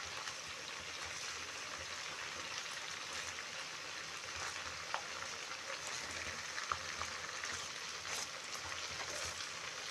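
Chicken pieces frying in a pan of bubbling oil and juices, a steady sizzle, with a few light taps of a fork against the pan.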